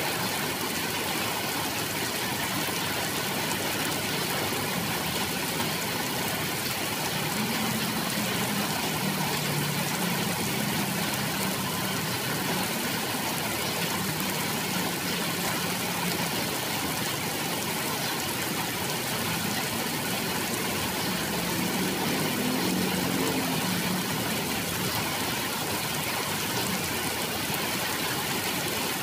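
Steady rain falling on foliage, an even hiss throughout. A low motor hum rises under the rain about a quarter of the way in and again later, then fades.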